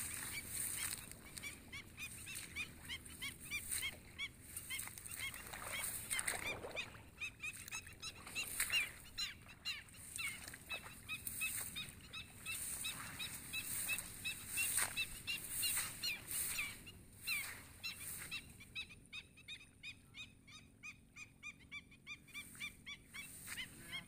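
Black-winged stilts calling: short, sharp yapping notes repeated several times a second, coming in a quick even series in the later part, over a steady hiss.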